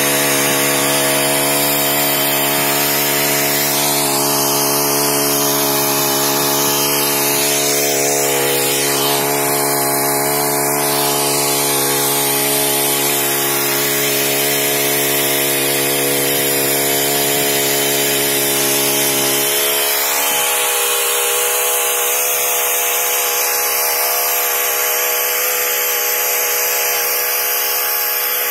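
Brush cutter engine running steadily with a tiller attachment, its rotating tines digging into soil and grass. About twenty seconds in, the deepest part of the engine tone drops away while it keeps running.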